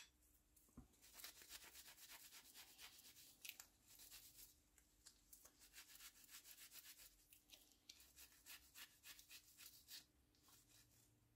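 Faint, quick back-and-forth rubbing of a rag on a wooden carving-tool handle, several strokes a second, as oil is rubbed into the wood. It starts about a second in and stops near the end.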